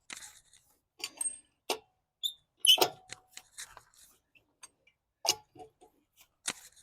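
Scattered metal clicks and clinks of hand tools on the wheel bolts as the wheel is secured, the loudest about three seconds in.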